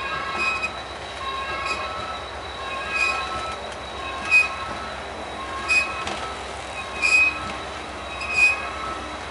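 Freight train cars rolling past, steel wheels squealing in high-pitched tones, with a louder screech or clank repeating about every second and a half.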